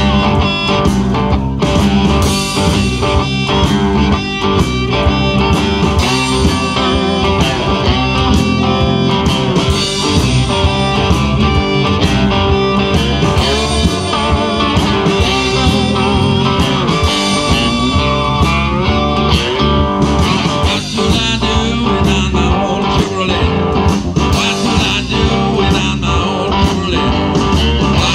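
A live blues band plays an instrumental passage on homemade cigar-box guitars over a drum kit with a steady beat, with amplified harmonica played into a handheld microphone.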